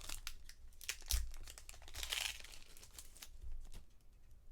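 Baseball card pack wrappers crinkling and cards being handled, with many short clicks and a brief tearing rasp about two seconds in.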